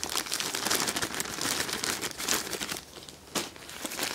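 Clear plastic bag crinkling as it is handled and opened, dense crackling for the first two or three seconds, then quieter with one short sharp rustle near the end.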